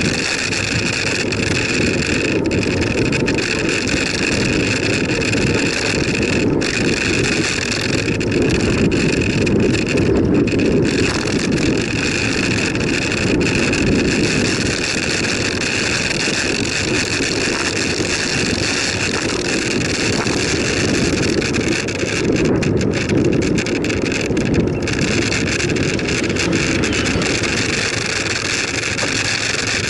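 Wind rushing over a bicycle-mounted camera's microphone, with the rumble of bicycle tyres rolling on a tarmac road: a loud, steady noise.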